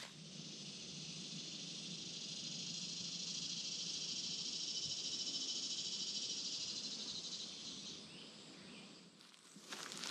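Insects in the trees buzzing in a steady, high-pitched drone that swells slowly and then fades out about eight seconds in.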